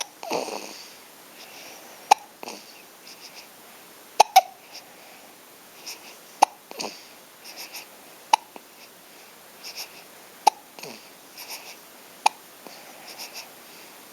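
A baby hiccuping: short sharp hiccups about every two seconds, seven or eight in all, two of them close together about four seconds in, with soft breathing and small sounds in between.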